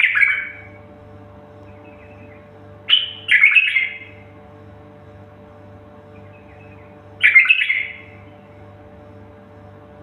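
A songbird singing three loud, short phrases, one roughly every four seconds, each a quick burst of notes falling in pitch, with faint soft twittering in between. A steady low hum runs underneath.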